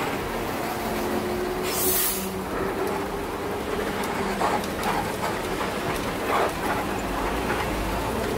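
Engine and road noise inside the cabin of a Mercedes-Benz OH 1518 bus under way, with a short sharp hiss about two seconds in.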